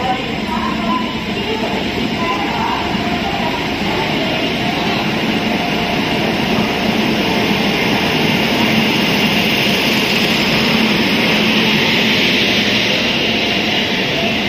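Indian Railways WAP-7 electric locomotive and its passenger coaches rolling slowly past the platform as the train pulls into the station: a steady rumble of wheels on rail that grows a little louder in the later part.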